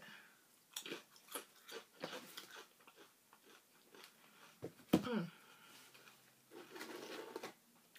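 Close-up chewing and crunching of nacho chips with cheese, a run of small crisp crunches, loudest about five seconds in.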